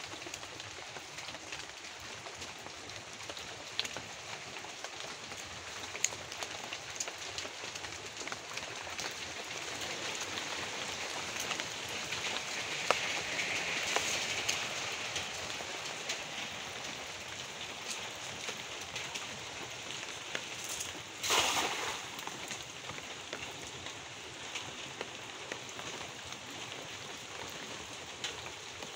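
Water drops pattering steadily on leaves and the pond surface, with many sharp ticks. About two-thirds of the way through comes a short splash, the cast net landing in the pond.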